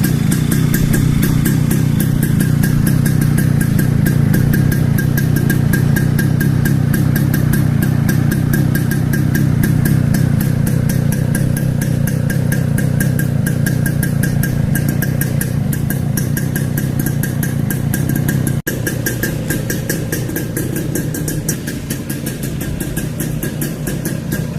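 Two-stroke engine of a homemade chopper motorcycle idling steadily with a fast, even beat. There is a momentary break about three-quarters of the way through, after which it runs a little quieter.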